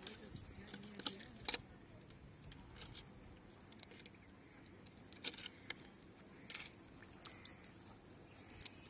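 Scattered small clicks and clinks at irregular intervals, the sound of a cast net's weights knocking together as the net is handled and sorted by hand.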